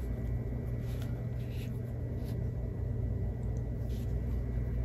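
Faint rustles and light scratches of pinked-edge cotton fabric squares being slid apart with fingernails, a few separate ticks spread over a steady low hum.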